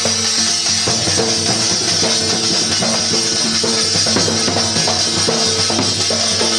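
Rajasthani dhol-thali folk dance music: a dhol drum beating a fast, driving rhythm, with a bright metallic ringing from the beaten thali plate and a short melodic phrase repeating over it.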